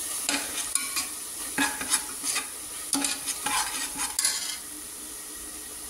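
Perforated steel spatula scraping and stirring thick onion-tomato paste with mint leaves around an aluminium pressure cooker, in about eight quick strokes over a steady sizzle of frying in oil. The stirring stops about four and a half seconds in, leaving only the sizzle.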